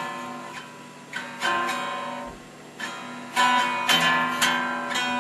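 Electric guitar strummed: a string of chords, each struck sharply and left to ring out before the next.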